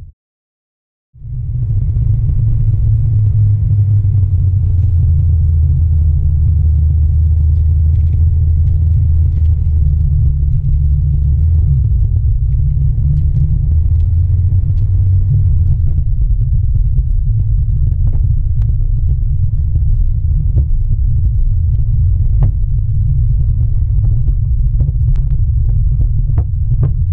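Heavy, steady wind and road rumble on a camera mounted low on a OneWheel electric board as it rolls along a paved path. The sound starts about a second in, after a moment of silence. Sharp ticks and knocks come more and more often in the second half.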